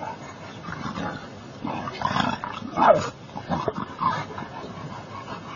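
A dog and white lion and tiger cubs play-fighting, with irregular short growls and cries; the loudest is a brief cry falling in pitch about three seconds in.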